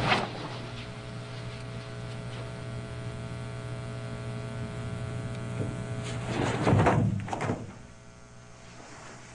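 Steady electrical hum on an old videotape soundtrack. About six and a half seconds in comes a brief, loud scuffling burst as two karateka in gi clash in a sparring exchange.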